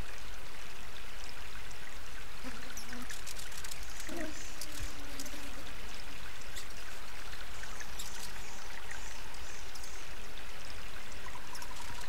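Water bubbling out of the top of a small ball-shaped garden fountain and trickling down its sides: a steady splashing trickle.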